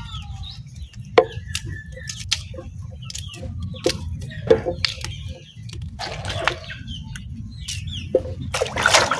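Birds chirping and calling in short notes, amid scattered sharp clicks and knocks, over a steady low hum.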